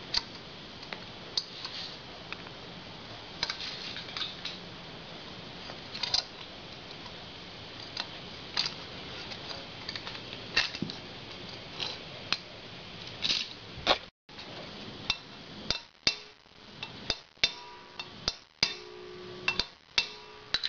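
Irregular metal clicks and clinks of hand tools on an aluminium Evo Sportster cylinder head as the valve springs and keepers are refitted with a spring compressor. In the last several seconds come sharper single taps, a few each couple of seconds, as a hammer taps the head's valve assemblies.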